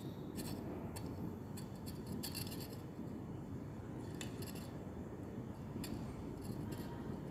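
Glass stirring rod scraping and clicking against a porcelain dish in short, irregular strokes as cocoa butter is stirred while it melts, over a steady low rumble.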